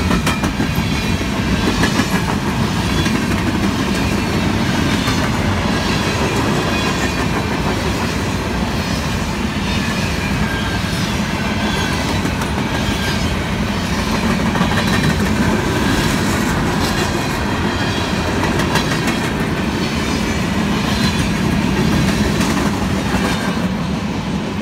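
Covered hopper cars of a CN freight train rolling past close by: a steady rumble of steel wheels on rail, with clickety-clack over the rail joints and faint wheel squeal at times.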